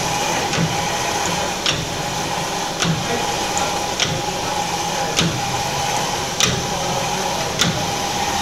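Steam engine running steadily, with a sharp regular click or clack about every 1.2 seconds over a continuous machinery hum that carries a thin steady tone.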